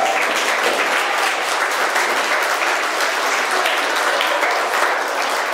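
A group of people applauding: dense, steady hand-clapping.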